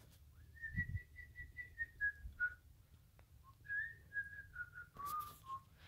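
A man whistling a few notes of a tune softly, in two short phrases that each step downward in pitch.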